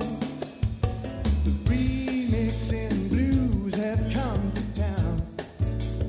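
Background song: a singer over a band with drums and bass, at a steady beat.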